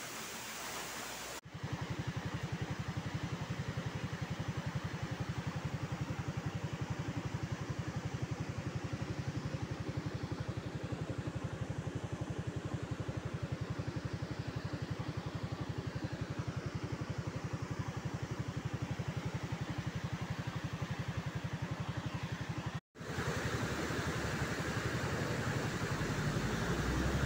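Motorcycle engine running steadily while riding, with a rapid, even low pulse. It is preceded for about a second by the rush of a waterfall, and after an abrupt cut near the end gives way to rushing water over rocks with a low rumble beneath.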